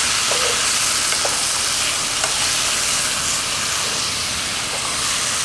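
Chopped onion, carrots and mushrooms frying in a pan: a steady sizzle with a few faint ticks.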